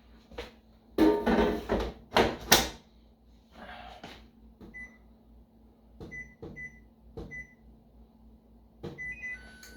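An air fryer basket goes in with two loud clattering clunks, then the air fryer's control panel gives several short single-pitch beeps as its buttons are pressed to set 400 degrees for 10 minutes.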